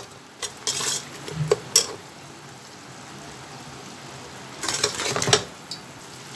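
Metal spoon scraping and clinking against a cooking pot while beef and spice masala are stirred as they fry. It comes in short bursts about half a second in, around a second and a half, and near five seconds, with a low, steady sizzle between.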